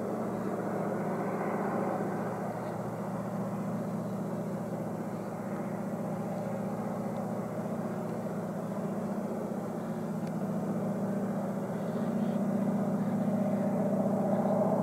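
Distant EMD G26 diesel locomotive's two-stroke engine working hard under load on a climb, a steady low drone that grows louder near the end.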